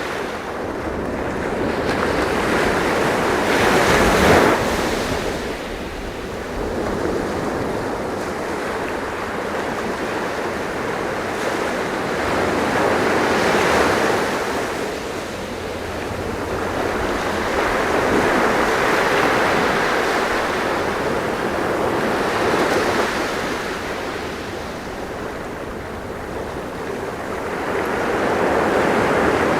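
Sea waves breaking and washing on the shore, a continuous surf that swells and ebbs every few seconds. The biggest surge comes about four seconds in.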